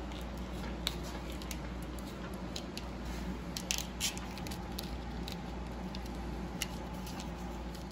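Plastic corrugated split-loom tubing crackling and clicking as wires are handled and pushed into it, with scattered small ticks over a steady low hum.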